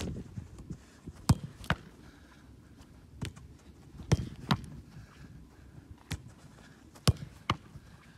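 Soccer ball being touched and struck by a goalkeeper's feet on artificial turf during a footwork drill: sharp thuds, several coming in quick pairs about half a second apart, with the soft shuffle of his steps between them.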